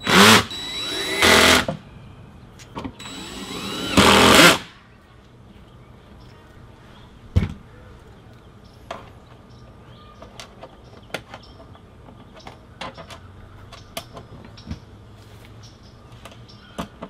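Cordless drill/driver on a low torque setting driving screws into a TV's mounting bracket, in three short bursts in the first five seconds, its motor whine rising and falling. After that come light clicks of screws and tools being handled and a single knock.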